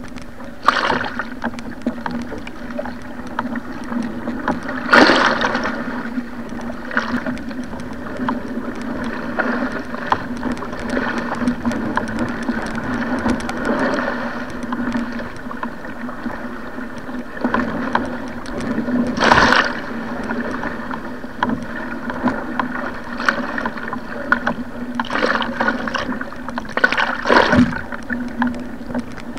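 A surfski running through rough water: a steady wash of water rushing and splashing along the hull, broken by several louder splashes, the biggest about five and nineteen seconds in, over a steady low hum.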